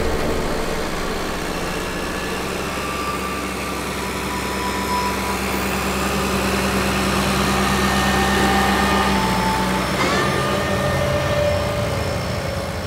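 Ambient documentary score: a steady low drone with held higher tones drifting in and out, and a brief rising sweep about ten seconds in.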